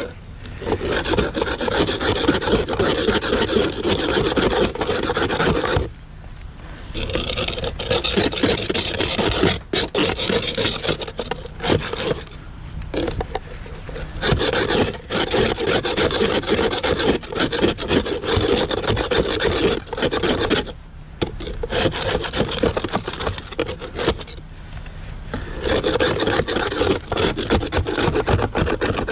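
Ice scraper rasping over and over across a car window's glaze of freezing-rain ice, in runs of strokes broken by a few short pauses.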